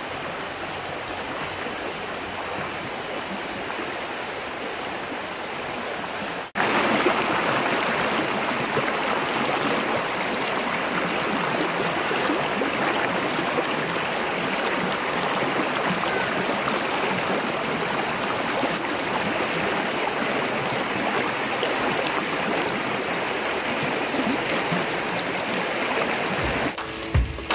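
Shallow stream rushing and splashing over rocks and small rapids, a steady water noise that jumps louder and fuller about six and a half seconds in. Two steady high-pitched tones ring over the water at first and stop at that change.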